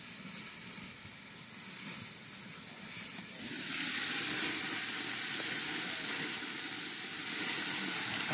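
Hamburger patties sizzling on a Char-Broil portable grill: a steady hiss, muffled under the closed lid, that grows much louder about three and a half seconds in when the lid is lifted.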